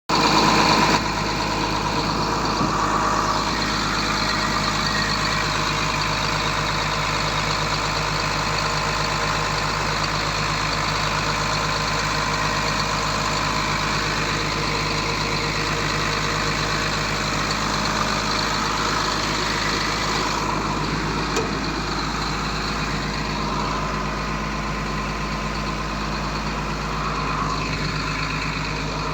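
Komatsu PC200 excavator's diesel engine running steadily.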